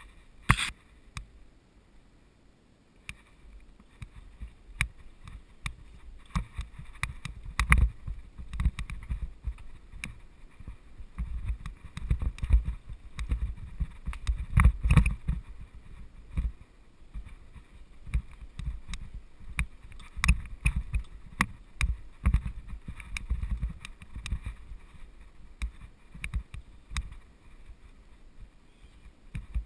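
Mountain bike rolling along a dirt singletrack trail: a low, uneven rumble from tyres and frame over the ground, with frequent clicks, knocks and rattles as the bike hits bumps, roots and twigs.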